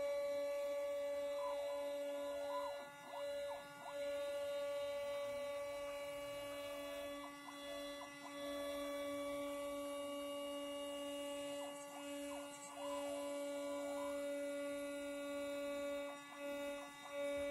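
CNC router's 1500 W spindle running with a steady high whine while its bit mills a circular cut in a wood panel; the level dips briefly about every four seconds.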